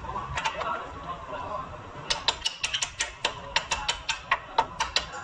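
Hand ratchet wrench clicking on a suspension bolt: a run of sharp metallic clicks, about four or five a second, starting about two seconds in and lasting about three seconds.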